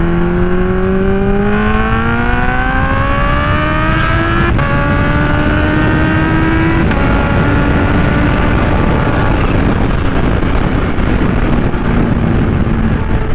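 Kawasaki Ninja H2's supercharged inline-four through an unbaffled Vandemon exhaust, a deep growl, accelerating through the gears: the pitch climbs, drops sharply at an upshift about four and a half seconds in, climbs again and drops at a second upshift about seven seconds in, then settles into a steady cruise with wind noise.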